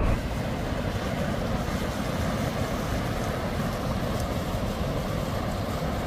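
Narmada River water rushing over rocks in fast rapids, a steady, even rush with no let-up.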